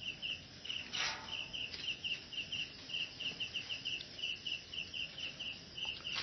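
Cricket chirping steadily, short high chirps, often in pairs, about four a second. A brief rush of noise comes about a second in.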